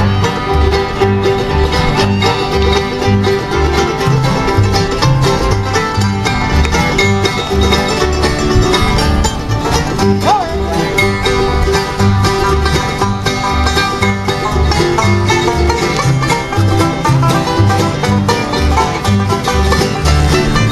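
A band playing live bluegrass-style string music, with plucked strings over a steady alternating bass line.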